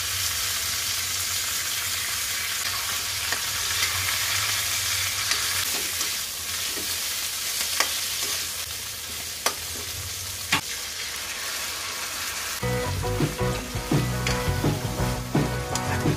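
Pechay (bok choy) sizzling in hot oil in a wok as it is stir-fried with a spatula, with a few sharp clicks of the spatula against the pan. Background music comes in about three-quarters of the way through.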